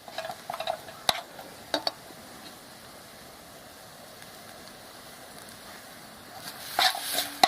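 Ginger, turmeric and jaggery in mustard oil frying on low heat. A faint steady sizzle runs under a spoon scraping and stirring the pan, in the first two seconds and again near the end.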